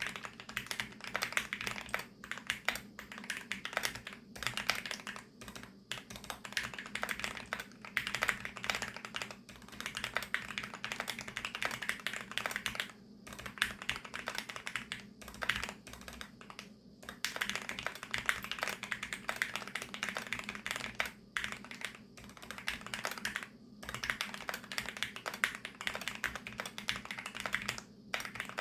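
Typing in continuous runs of fast keystrokes, with short pauses every few seconds, on a VARO V68+ 65% mechanical keyboard with VARO Panda linear switches lubed with Krytox 205.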